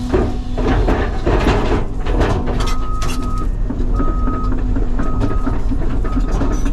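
CAT 323 excavator's diesel engine running steadily with scattered knocks, and from about two and a half seconds in a backup alarm beeping about once a second.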